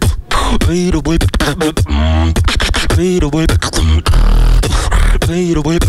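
Beatboxing into a handheld microphone: a fast run of sharp percussive clicks and snare-like hits mixed with pitched vocal tones that bend up and down, with a deep held bass note about four seconds in.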